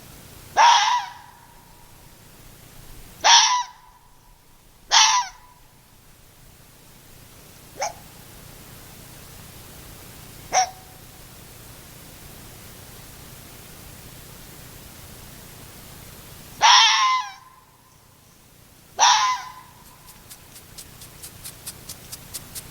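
Fennec fox giving a series of short, sharp calls, seven in all, two of them fainter, spaced a few seconds apart. Near the end comes a quickening run of rapid clicks, several a second.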